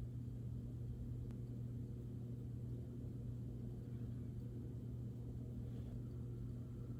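A steady low hum, with a faint click about a second in.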